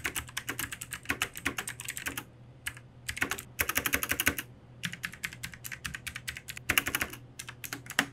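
Logitech G Pro X mechanical keyboard with GX Blue clicky switches being typed on. It gives fast runs of sharp key clicks in a few bursts, with short pauses and slower single key presses between them.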